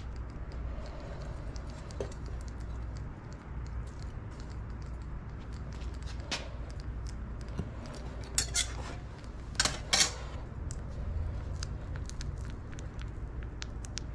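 Steel crucible tongs clinking against a hot crucible of molten copper as it is lifted from the melting furnace and gripped for pouring. There are a few sharp metallic clinks, most of them between about eight and ten seconds in, over the steady low rumble of the gas furnace burner.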